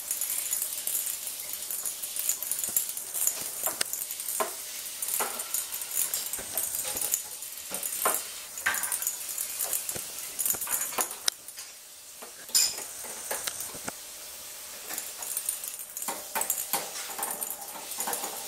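A ferret scuffling and playing with a ball on the floor of its wire cage: irregular light knocks, taps and scratching of the ball and paws against the cage tray and bars, with one sharper knock past the middle.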